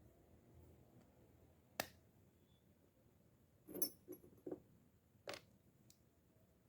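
A few small, sharp clicks and light taps of fishing-reel parts and tools being handled: one click, then a quick cluster of three a couple of seconds later, then one or two more.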